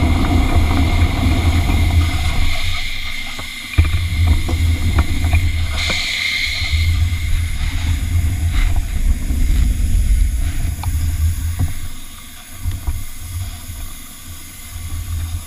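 Miniature live-steam locomotive standing in steam, hissing steadily, with a louder burst of hiss about six seconds in, over a heavy fluctuating low rumble and scattered small clicks.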